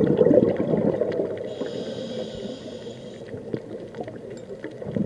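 Scuba diver breathing through a regulator underwater: a gurgling rush of exhaled bubbles that fades after about a second, then a quieter inhaled hiss through the regulator lasting about a second and a half.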